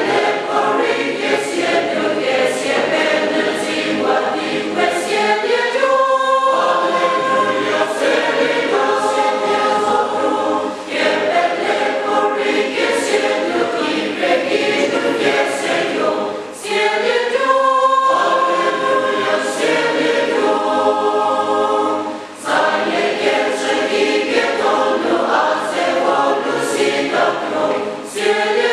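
Large mixed choir of men and women singing, in phrases of about five or six seconds with short breaks for breath between them.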